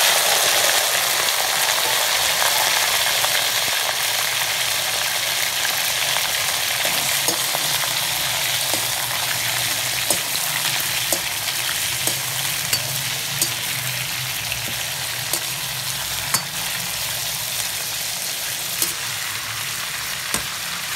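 Raw chicken pieces frying in hot oil in a karahi: a loud, steady sizzle that eases a little as it goes on. From partway through, a metal slotted spatula clicks and scrapes against the pan now and then as the pieces are turned.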